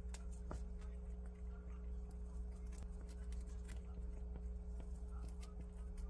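Prairie dog chewing fresh bamboo leaves: short, irregular crisp clicks of the leaves being bitten and chewed, over a steady low hum.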